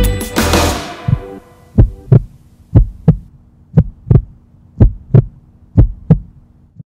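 Music fades out over the first second or so, then a heartbeat sound effect: five double thumps, lub-dub, about one a second.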